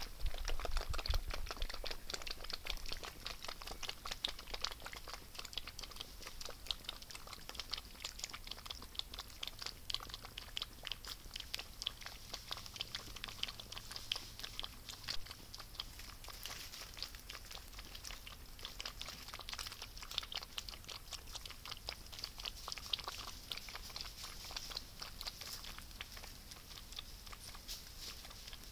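Several South American coatis lapping water from a shallow basin: a dense, steady run of small wet clicks and slurps, a little louder in the first couple of seconds, over a constant high hiss.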